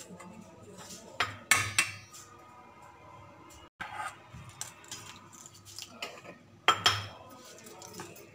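Metal spoon scraping and clinking against a stainless steel bowl while stirring flour and semolina batter. The loudest clinks come in two clusters, about a second and a half in and again near seven seconds.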